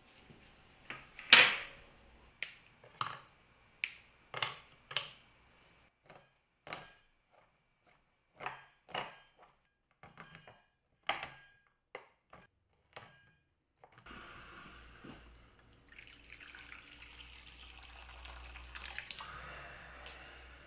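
A knife chopping a bar of chocolate on a wooden cutting board: a string of separate sharp chops, irregular at about one or two a second. About two-thirds of the way through the chopping stops and water runs steadily into an enamel bowl, filling it for a water bath to melt the chocolate.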